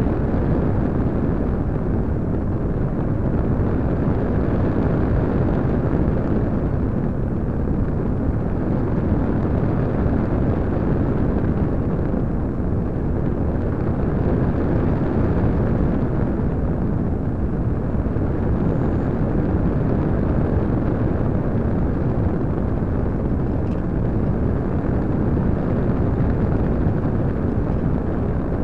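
Airflow rushing over the onboard keychain camera's microphone on a Parkzone Radian electric RC glider in flight: a steady, low rushing noise with no clear tone in it.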